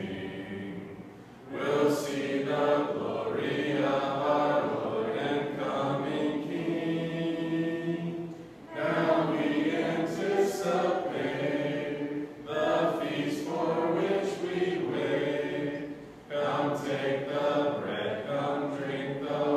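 Several voices singing a hymn a cappella, with no instruments, in phrases with short breaks for breath between them.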